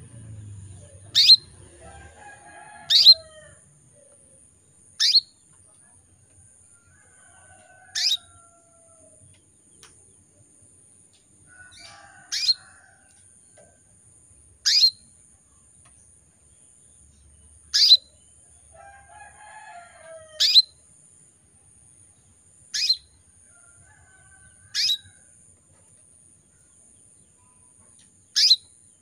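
Female canary calling in breeding condition: about eleven short, sharp, high-pitched tweets, each sliding quickly down in pitch, a few seconds apart, with soft low chattering between some of them. These are the calls of a hen in heat answering males.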